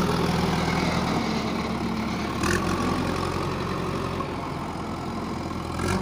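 JCB 3DX backhoe loader's diesel engine running steadily while the machine carries a loaded front bucket of soil, with a short clunk about halfway through.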